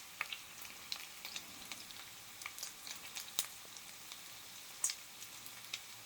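Longganisa sausages frying in hot oil in a pan: a steady sizzle with frequent sharp pops and crackles of spattering fat.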